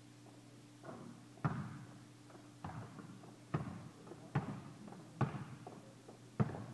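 Basketball bouncing on a hard gym court, about seven bounces roughly a second apart, each one echoing in the large hall.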